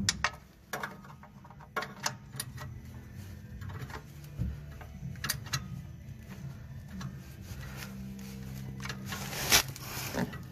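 A 17 mm wrench clicking and clinking against an oil-pan drain plug as it is fitted and worked to break the plug loose, in irregular small clicks over a faint low steady hum, with a sharper click near the end.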